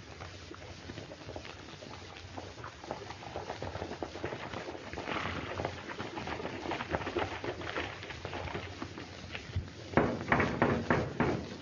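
Horses' hoofbeats coming closer over the hiss of an old film soundtrack, a patter of clops that grows louder, then a run of sharp, loud knocks near the end.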